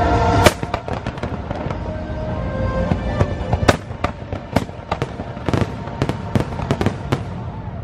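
Fireworks going off. A very loud bang about half a second in cuts across the end of a held musical chord, then a rapid, irregular string of sharp cracks and pops continues over faint show music.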